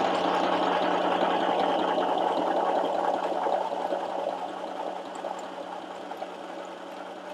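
FHSM 505 mini sewing machine running steadily, its small motor driving the needle as it stitches along the buttonhole under the buttonhole foot. The sound gets quieter a little past halfway.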